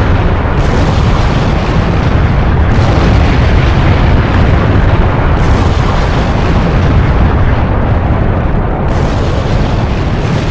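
A loud, continuous explosion rumble, heaviest in the low end, staged as a nuclear blast.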